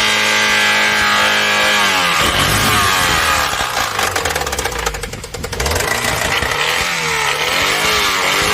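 Car engine held at high rpm, its note steady for about two seconds, then falling and wavering as the revs rise and drop. About four seconds in, a rapid, harsh rattling clatter joins in for a second or so.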